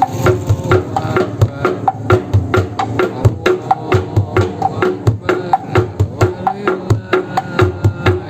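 A bedug, the large Indonesian mosque drum, beaten in a quick, steady rhythm of about three to four strokes a second. Deep thumps are mixed with sharper, clicky knocks.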